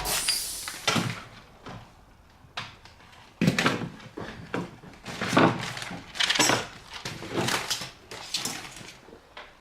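Irregular clicks, knocks and light metallic clatter from hands handling the sealer's parts and tools, with gaps of quiet between them.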